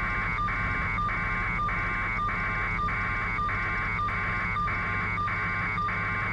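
Pulsing electronic buzz on the raw helicopter feed's audio, repeating a little under twice a second, over a steady low hum: interference or a data tone on the feed rather than any sound from the scene.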